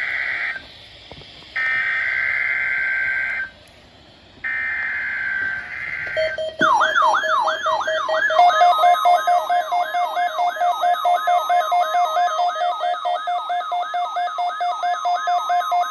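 NOAA Weather Radio required weekly test signal. It opens with three short bursts of screeching digital SAME header data. About six seconds in, a fast-warbling, siren-like alarm begins over steady tones and runs loud and even.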